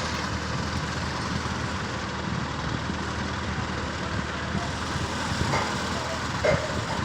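Diesel engine of a hydra mobile crane running steadily at idle.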